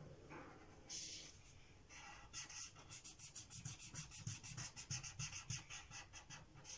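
Felt-tip marker scrubbing back and forth on paper while colouring in a shape. A single stroke about a second in, then from about two seconds in a quick, even run of about five strokes a second.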